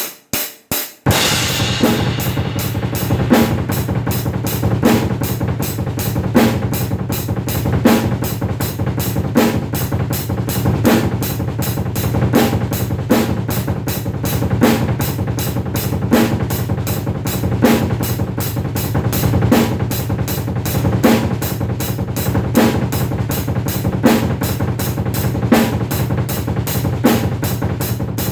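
Drum kit played solo: a few separate hits, then a fast, steady groove of bass drum, snare and cymbals with a strong accent about every second and a half.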